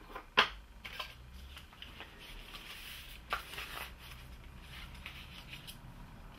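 Handling noise from an ABS hydraulic unit being moved on a workbench: a sharp knock about half a second in, then a few lighter clicks and knocks.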